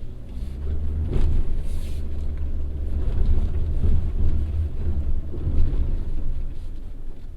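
Subaru Forester e-Boxer hybrid driving off-road: a steady low rumble that grows louder just after the start, with a brief knock about a second in.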